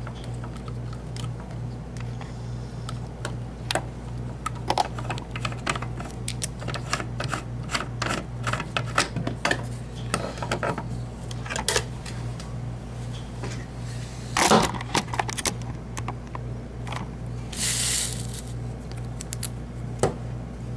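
Irregular small metal clicks, taps and rattles of a brass mortise lock cylinder being handled at a workbench, with a louder knock about two-thirds of the way through and a short scrape near the end. A steady low hum runs underneath.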